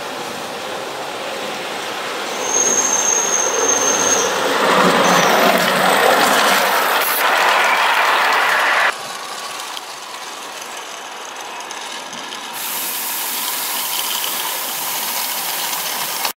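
Small live steam locomotive running past on a garden-railway track, its running gear growing louder as it nears, with a thin high tone for a second or two about three seconds in; the sound cuts off abruptly about nine seconds in. After that, a quieter steady hiss from a larger live steam locomotive standing in steam, rising a little about three seconds before the end.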